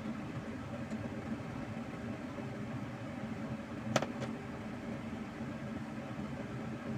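Pot of instant noodles at a rolling boil on an electric hob, a steady bubbling hum. A sharp click about four seconds in, followed by a fainter one.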